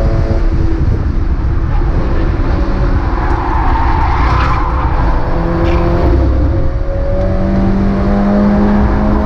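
Mazda MX-5 race car engine heard from on board: the engine note falls away early as the car slows, a rush of noise swells and fades in the middle, then the note climbs steadily as the car accelerates.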